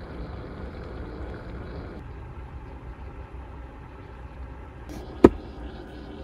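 Barocook flameless heating pack reacting with water in the base of a flameless cooker, a steady low hissing rumble as steam escapes around the lid: the reaction is running hot. A single sharp click about five seconds in.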